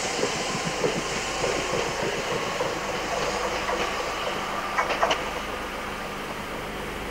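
Train running along the track: a steady rush of running noise, with a cluster of sharp clicks about five seconds in.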